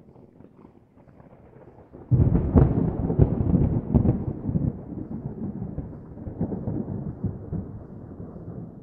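Thunder-like rumble, laid on as an edited sound effect: a faint low rumble, then a sudden loud clap about two seconds in that rolls on with crackles and slowly dies away.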